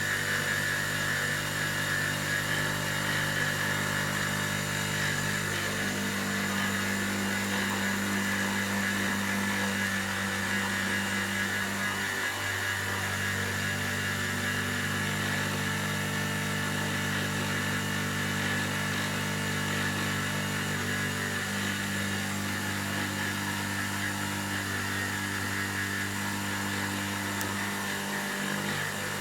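Optimum BF16 benchtop milling machine, CNC-converted, roughing an aluminium part: a steady spindle-and-cutting sound with a high ringing whine from the cut, and low motor tones that shift in pitch a few times as the toolpath changes.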